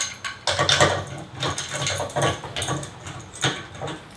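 Irregular metallic clinks and knocks of a padded steel storage-rack arm and its bolt, lock washer and washer being fitted to a ceiling post by hand.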